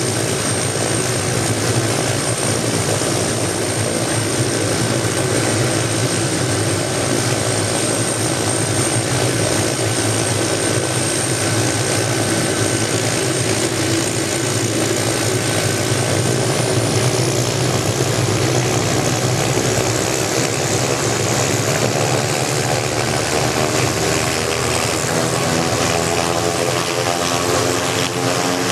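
Hughes light helicopter running on the ground after a cold start, engine and turning main rotor going steadily with a high whine over the noise. About twenty seconds in, a humming tone sets in and slowly rises in pitch.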